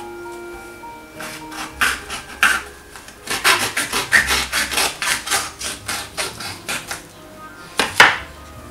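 Quick rubbing and scraping strokes over food in a kitchen tray, about three or four a second, over soft background music, ending with one sharp knock.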